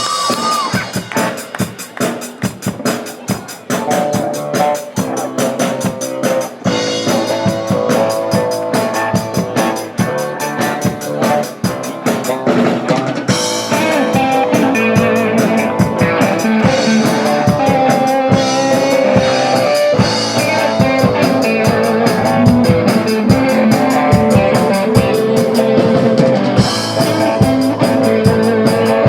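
Rock band playing: a drum-led opening with sparser playing first, sustained guitar lines joining about six seconds in, and the full band louder from about thirteen seconds.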